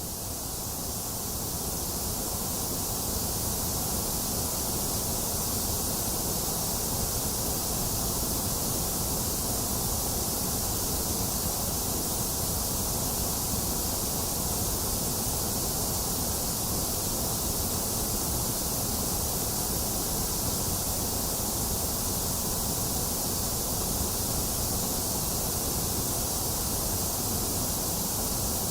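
Box fan running steadily with rain falling, blended into one continuous hiss with a low rumble, which fades in over the first couple of seconds and then holds steady.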